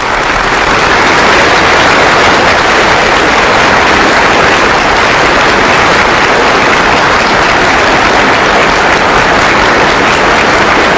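Sustained applause from a large hall audience, many hands clapping in a dense, steady wash.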